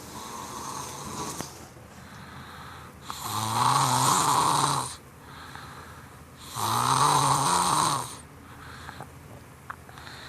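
Snoring in deep sleep from exhaustion: two loud snores about three and a half seconds apart, with softer breathing between them.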